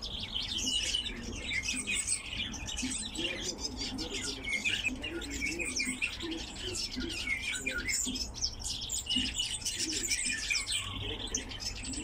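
Cage birds chirping busily, with many short high calls overlapping one another.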